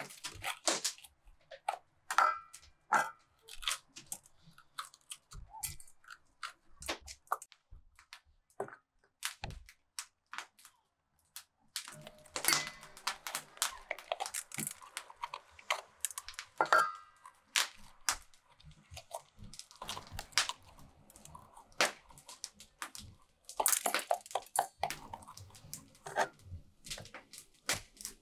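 Knife cutting and coring fresh bell peppers: irregular crisp crunches and snaps of the pepper flesh, with clicks and light clanks of the knife and peppers against stainless steel bowls, including a couple of brief metallic rings.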